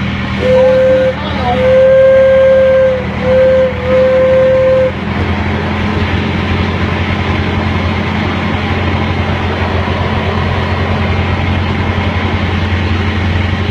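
Park ride train sounding its horn four times, one steady pitch, short-long-short-long, over the first five seconds. Then the train runs on with a steady low drone.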